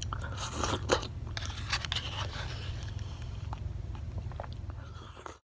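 Close-up mouth sounds of eating soft orange jelly off a spoon: wet squishing and smacking with small clicks, a sharper click about a second in, over a steady low hum. It stops abruptly near the end.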